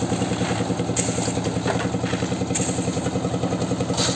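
Engine-driven concrete mixer running steadily with a fast, even engine beat, its rotating drum giving a brief clatter about every second and a half as it churns the roof-slab concrete.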